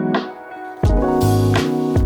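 Background music: sustained instrumental chords, a short drop-out, then a drum beat with heavy bass coming in about a second in.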